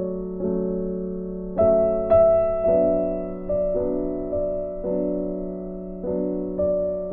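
Background piano music: slow chords, each struck and left to fade, about one a second.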